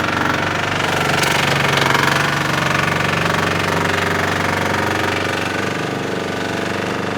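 Digger's diesel engine running steadily close by, with a fast even knock, as the machine is driven over a work boot.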